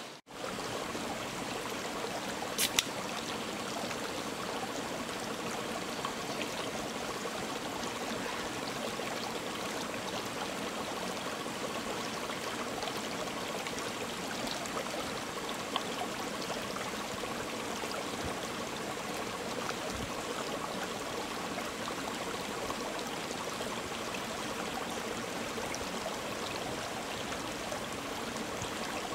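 Mountain stream running steadily over rocks, with a small cascade. A sharp click about three seconds in and a fainter one around the middle.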